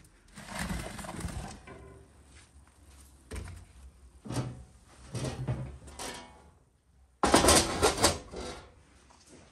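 Metal baking pans scraping and knocking on the stone hearth of a wood-fired brick oven, in several short strokes. About three-quarters of the way through comes a loud, sudden metal scrape and clatter lasting about a second, as the sheet-metal oven door is set over the opening.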